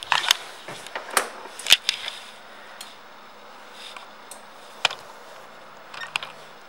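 Scattered light clicks and knocks from handling around a Suzuki Burgman 650 scooter, most of them in the first two seconds. A faint low hum sets in about five seconds in.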